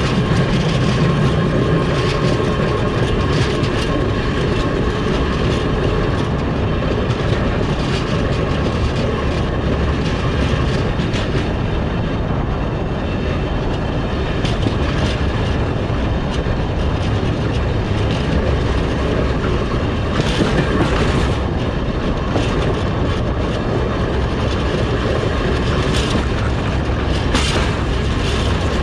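Railway wagon's bogie wheels rolling along jointed track, heard right at the wheel: a steady heavy rumble with the clickety-clack of the wheels crossing rail joints, and a few sharper knocks in the last third.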